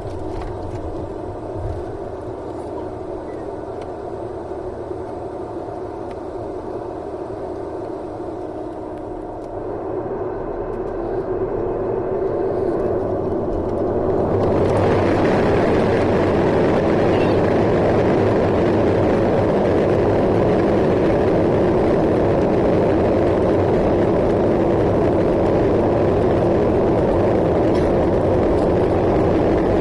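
Airbus A320neo jet engines heard inside the passenger cabin: a steady hum that swells between about nine and fifteen seconds in, then holds as a louder, steady rush, the way engines spool up to takeoff thrust.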